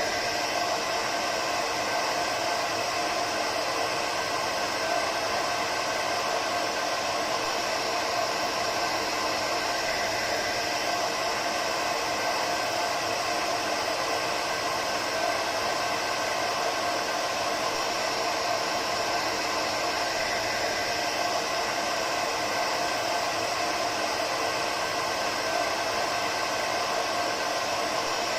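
Hair dryer running continuously at a steady speed, an even whooshing noise with a faint steady whine and no changes.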